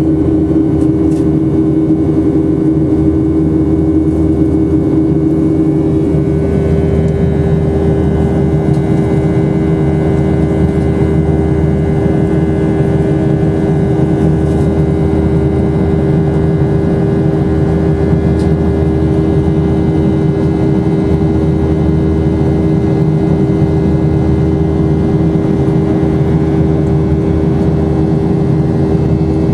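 Boeing 737-800's CFM56-7B jet engines running steadily under power: a constant rushing noise with a steady engine hum. The engine tones shift slightly about six seconds in.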